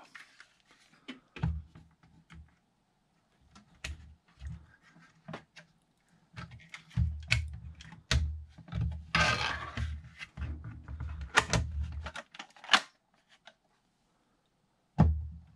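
Clicks, knocks and rattles of a 3D-printed plastic folding-gun shell being handled and folded shut around an airsoft pistol, with a stretch of scraping and bumping in the middle and a sharp click about thirteen seconds in. A thud near the end as the folded shell is stood upright on a wooden desk.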